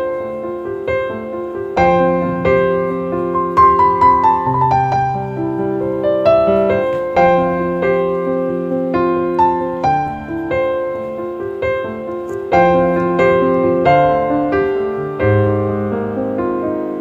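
Background piano music: a gentle melody of struck notes over held chords.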